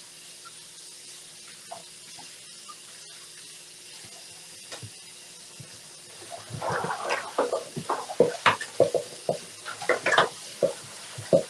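Tap water running into a stainless steel kitchen sink while a pot and bowl are rinsed. About six seconds in, dense, irregular clattering and scraping starts and becomes the loudest sound, as the pot is scrubbed and knocked against the sink.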